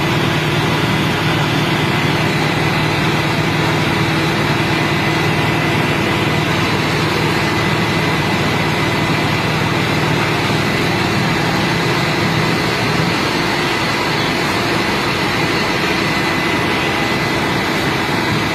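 Steady, loud drone of a heavy truck engine running with a constant low hum, heard from inside the truck's enclosed cargo box.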